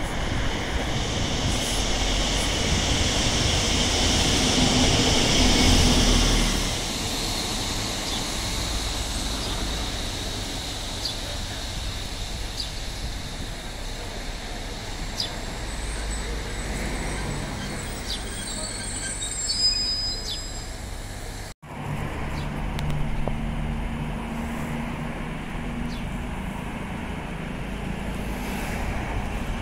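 Class 150 diesel multiple unit approaching over the points, its engine and wheel noise loudest in the first few seconds, then settling to a quieter steady rumble. After a sudden cut about two-thirds of the way in, a Class 221 Voyager diesel unit pulls out with a steady low engine note.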